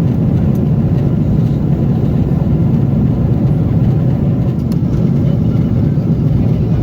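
Steady low rumble of a Boeing 777-300ER cabin in cruise: airflow and engine noise heard from inside the airliner.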